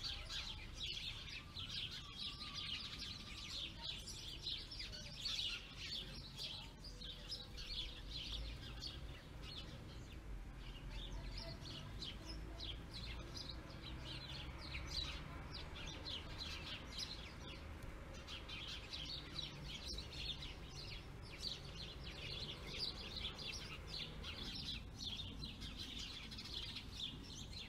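Small songbirds chirping and twittering: many short, high chirps overlapping almost without pause, easing off briefly a couple of times.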